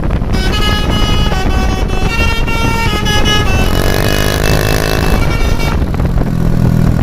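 Bus telolet horn playing a quick melody of stepped notes for about five seconds, holding one long note near its end, over the low rumble of the bus's engine. The horn stops about a second before the end, leaving the engine's steady drone.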